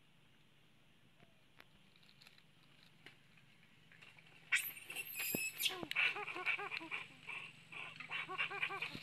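Monkey calls: a sudden loud, shrill call about halfway through, then a quick run of short squeaky calls, each rising and falling in pitch.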